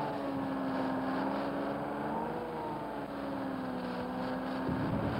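Old tractor-based front-end loader's engine running steadily, with a slight waver in pitch about halfway through as it works the loaded bucket.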